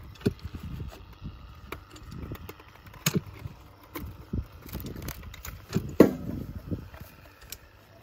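Irregular knocks, scrapes and thuds of an old wooden fence post being dug around and rocked in dry dirt, with the sharpest knock about six seconds in.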